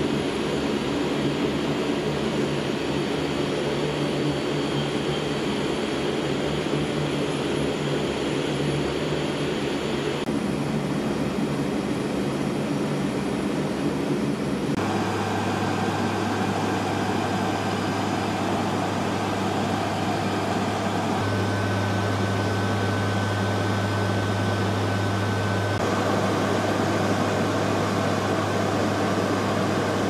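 Cockpit noise of a C-130J Super Hercules: the steady drone of its four turboprop engines and propellers, with a low hum that shifts abruptly in pitch and level several times.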